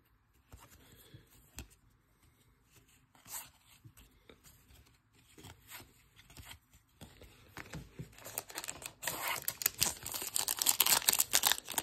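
Soft clicks of trading cards being slid one behind another by hand. Then, from about eight seconds in, a foil trading-card pack wrapper crinkling and tearing as it is ripped open, growing louder toward the end.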